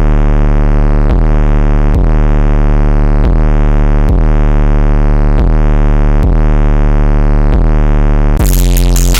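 Electronic bass music: a heavy sustained synth bass note, re-struck about once a second with a downward filter sweep each time, with the drums out until a beat comes back in near the end.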